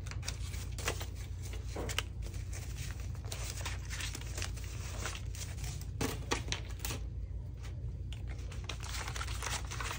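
Paper dollar bills being counted out by hand: many small crisp rustles, crinkles and flicks of the banknotes.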